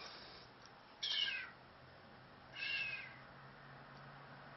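Pine grosbeak in a cage giving two short, plaintive calls about a second and a half apart, each falling in pitch.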